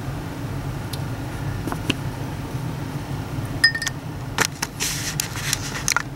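Small clicks and taps of a plastic action figure and painting tools being handled on a desk, clustered in the second half, over a steady low hum.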